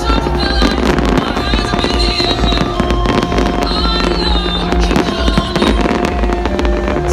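Fireworks bursting and crackling in quick succession over loud electronic dance music with a pulsing bass beat.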